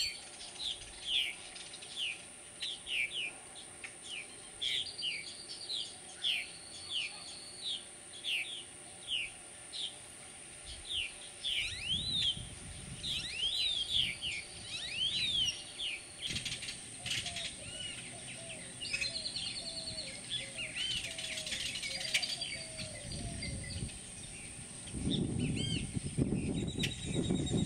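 Purple martins calling: a steady series of short, falling chirps, about two a second, then looping, warbling notes. There is a low rumble about twelve seconds in and again near the end.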